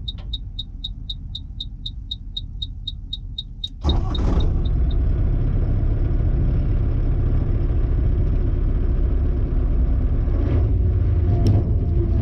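Gehl 5240 turbo skid steer's engine running, with a rapid series of high electronic beeps, about four or five a second, for the first few seconds. About four seconds in, the beeping fades out and the engine suddenly gets much louder and runs on at that higher level.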